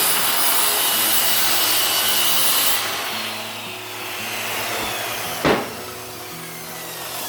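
Circular saw cutting through a wooden board, the cut ending about three seconds in, then the blade winding down with a falling whine. A single knock follows about five and a half seconds in.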